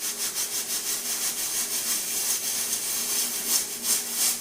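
Pressure cooker steam hissing out around the jiggling counterweight in rapid, even puffs, about seven or eight a second: pressure built up inside between whistles while cooking dal.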